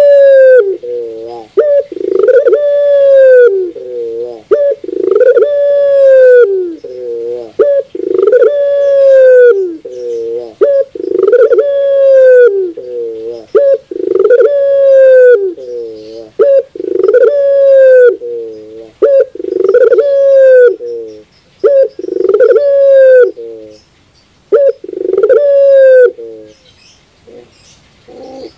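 Caged ringneck dove (puter), a pelung-style singer, cooing over and over: about eleven loud coos, one every two and a half seconds, each a long falling note with short stepped notes trailing down after it. The cooing stops a couple of seconds before the end.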